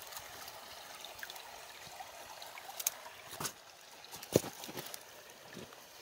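Shallow mountain stream trickling over stones, a steady light rush of water. A few brief knocks cut through it about three and four and a half seconds in.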